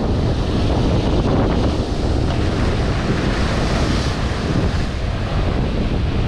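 Strong wind buffeting the microphone over ocean surf breaking and washing against jetty rocks, with the rush of the surf swelling louder about four seconds in.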